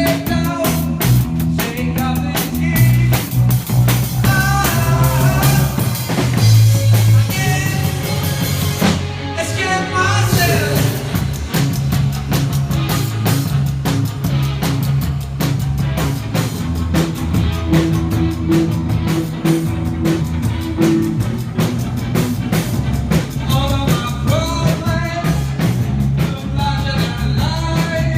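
Rock band playing live: drum kit keeping a steady beat under bass guitar and electric guitar, with a male voice singing in stretches.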